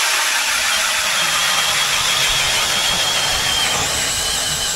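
Power ice auger boring a hole through lake ice: a loud, steady whirring with a faint high whine.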